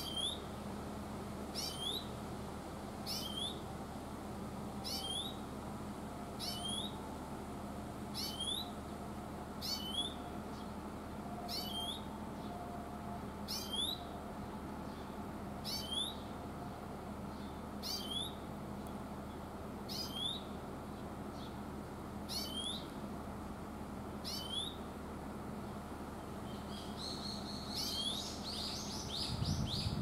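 Grey-capped greenfinch (Oriental greenfinch) giving its rising 'chuiin' call over and over, one note about every second and a half to two seconds. Near the end the calls give way to a quicker twittering run of notes.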